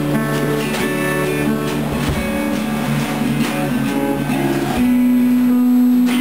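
Acoustic and electric guitars playing an instrumental passage of strummed chords, settling about five seconds in on one long held chord.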